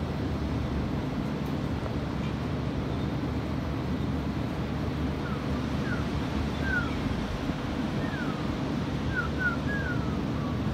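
Steady low rush of ocean surf and wind on the microphone. From about five seconds in, a bird gives a string of short falling chirps.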